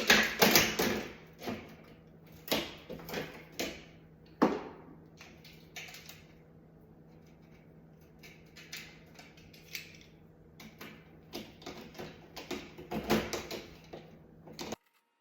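Scattered metallic clicks and knocks from handling a replacement oven door hinge and its screws while trying to get a screw to seat, with a sharper knock about four seconds in and a busier run of clicks near the end before the sound cuts off abruptly.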